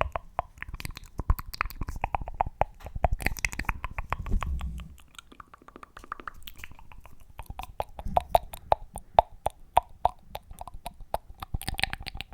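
Close-miked ASMR fast tapping and mouth sounds: a dense run of quick clicks, many ringing with a hollow tone, over a low rumble in the first five seconds.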